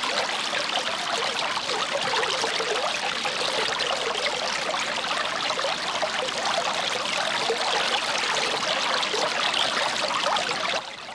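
Water fountain splashing steadily, spray falling into a pool, fading out just before the end.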